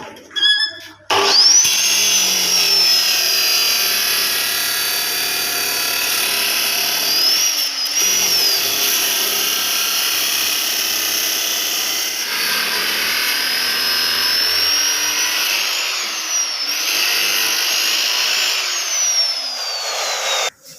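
An electric power tool runs steadily under load. Its high motor whine rises and falls in pitch, and it starts about a second in and cuts off just before the end.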